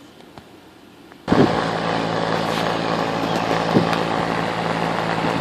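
Comfortmaker HVAC package unit's outdoor section starting up abruptly a little over a second in, then running steadily with a low electrical-mechanical hum and fan air noise.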